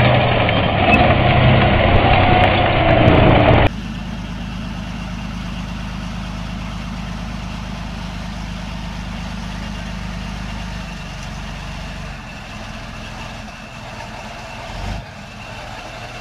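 A heavy tank engine runs loudly for the first few seconds, its pitch moving up and down. After a sudden cut it gives way to the steadier, quieter drone of a Leopard 2 tank's V12 diesel as the tank creeps into a trench. A single low thud comes near the end as its nose tips into the trench.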